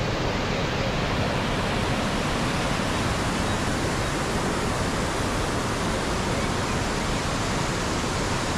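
Water gushing through the open gate paddles into a canal lock chamber, a steady unbroken rush of churning white water as the lock fills to raise a narrowboat.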